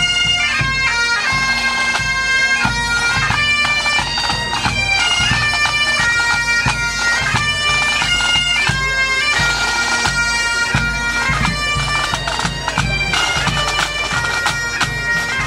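Highland bagpipes playing a tune: stepped melody notes over a steady drone, starting abruptly.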